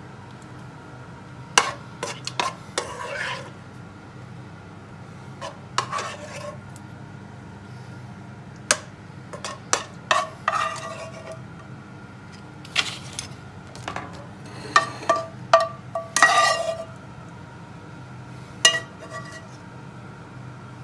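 A metal spoon scraping and clinking against a frying pan and plates as caramelised plums are spooned out, in scattered sharp knocks and short scrapes. A steady low hum runs underneath.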